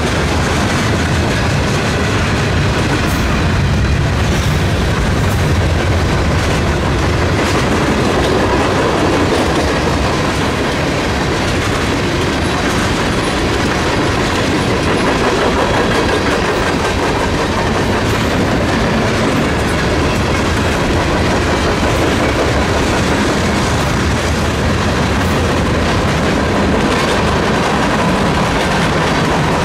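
Freight cars of a mixed freight train (covered hoppers, tank cars, a centerbeam flatcar) rolling past close by. Steel wheels make a steady loud rumble on the rails, with scattered clicks as they cross rail joints.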